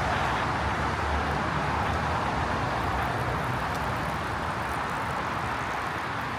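Steady rush of highway traffic from cars passing on the nearby interstate, slowly getting a little quieter.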